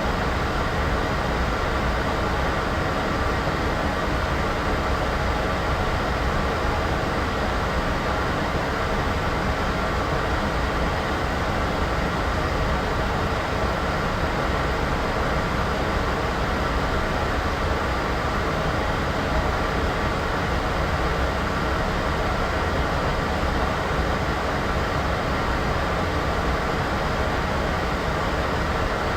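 Steady, unchanging rushing noise, heavier in the low end than the highs, used as a white-noise sound effect.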